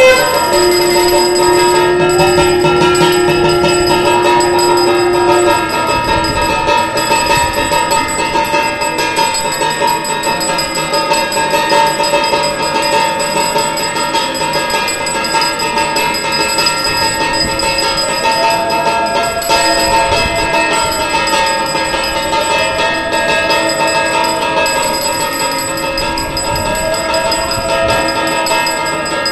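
Temple bells and struck bell-metal ringing continuously and rapidly for the evening aarti. A steady held tone sounds over them for the first five seconds or so, and slow rising-and-falling tones come and go later.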